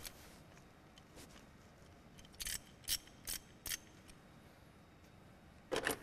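Ratchet wrench clicking as an ignition coil's fixing bolt is loosened. Four short clicks come about 0.4 s apart in the middle, then a quick cluster near the end.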